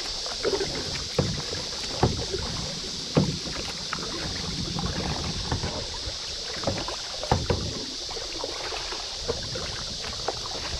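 Kayak being paddled on a river: irregular paddle strokes and water splashes, with sharp knocks now and then, over a steady high hiss.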